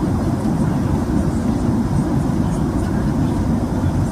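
Steady low rumble of a Boeing 767-300ER airliner's cabin, with engine and airflow noise heard from inside.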